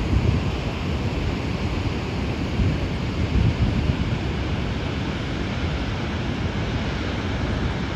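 Steady rush of a flooding river below an overflowing dam spillway, with wind gusting on the microphone, strongest just after the start and again around three to four seconds in.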